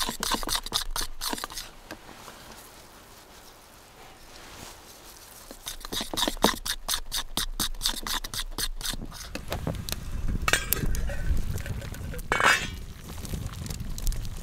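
Eggs being beaten by hand in a small bowl, with rapid clinking strokes in two spells. About nine seconds in they give way to a low rumble of an open fire and boiling water under a pot, with a couple of short metal clatters from the pot lid.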